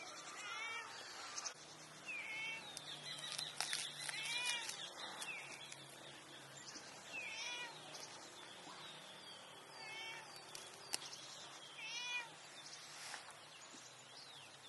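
A cat meowing over and over, about six short meows that rise and fall in pitch, every couple of seconds. A few light knocks come in between, the sharpest about eleven seconds in.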